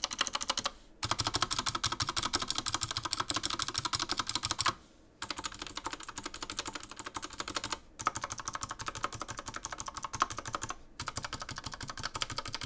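Typing on an Epomaker AK61 60% mechanical keyboard with clicky Gateron Optical Blue switches: rapid, continuous key clicks, broken by about four short pauses.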